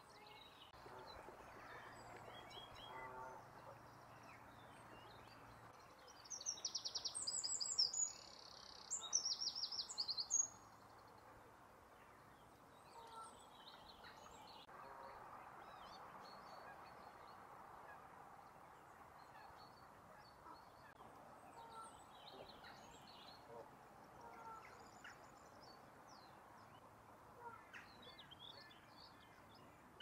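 A small songbird sings two loud, rapid, high-pitched trilling phrases about six and nine seconds in. Faint short bird calls are scattered through the rest, over quiet outdoor background noise.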